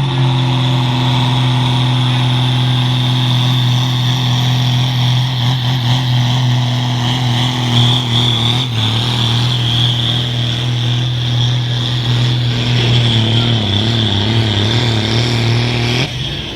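Heavily modified farm tractor engine (hot farm class) running at high revs under full load on a pull; the pitch holds steady, sags a little partway through and wavers near the end, then the engine backs off about sixteen seconds in as the run ends. It is running well within itself, not using nearly all its horsepower.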